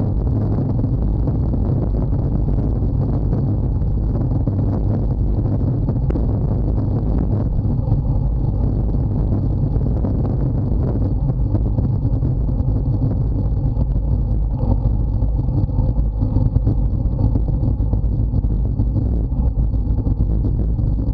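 Loud, steady low rumble of wind buffeting the camera microphone, with tyre noise on asphalt, as a road bicycle coasts downhill at about 65–70 km/h.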